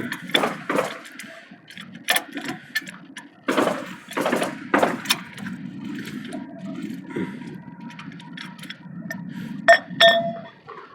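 Metal tools and parts being handled: irregular knocks and clinks over a steady low hum, with a ringing metallic clink about ten seconds in.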